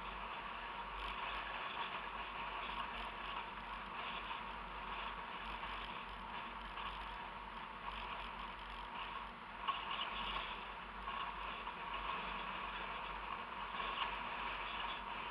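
Steady driving noise of a car on an asphalt road: tyre and wind noise with a constant faint hum, broken once by a short knock about two-thirds of the way through.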